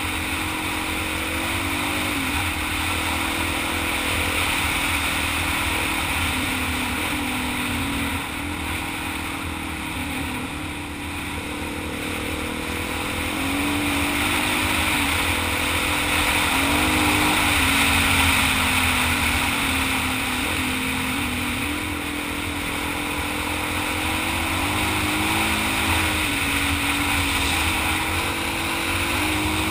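Dual-sport motorcycle engine running while riding a dirt trail, its pitch rising and falling every few seconds with the throttle.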